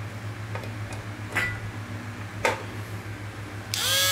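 A step-up inverter hums steadily while a few clicks and knocks of handling sound. Near the end a small 100 V, 20 W Broson electric die grinder switches on, spinning up quickly to a steady high whine.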